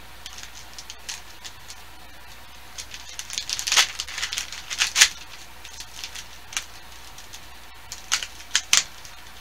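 Crinkling and crackling of a plastic soft-bait bag being handled, busiest about three to five seconds in, with a few sharp crackles near the end.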